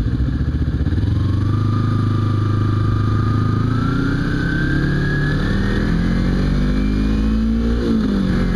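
Kawasaki Ninja 250's parallel-twin engine pulling away from a stop, its pitch climbing steadily for several seconds. Near the end the pitch drops sharply as the rider shifts up, then starts climbing again.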